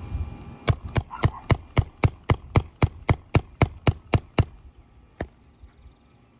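Roofing hammer striking steel in a quick run of about fifteen sharp, ringing blows, about four a second, then one last blow a moment later, working the last nail loose from an asphalt shingle.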